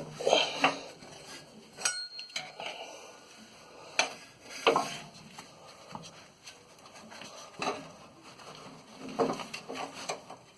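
Scattered metallic clinks and knocks from hands and a screwdriver working a rubber bump stop into its welded metal cap under the vehicle, with a short squeak about two seconds in.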